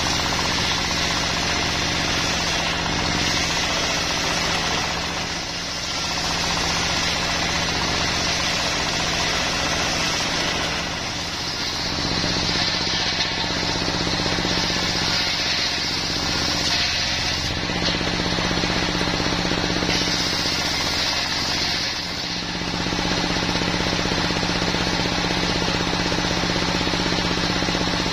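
A stationary diesel engine running steadily, belt-driving a large circular sawmill blade as it rips a wadang log lengthwise into rafter stock. The sound holds steady, with a few brief dips in loudness.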